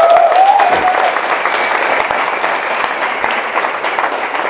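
An audience clapping, with a couple of cheering voices in the first second; the applause dies down gradually toward the end.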